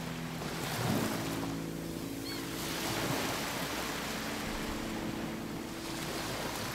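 Soft ambient music of slow, held low notes that change pitch every couple of seconds, over a steady wash of sea and wind.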